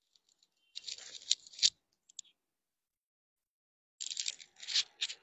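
Two short spells of rustling handling noise, about a second in and again near the end, with a sharp click at the end of the first.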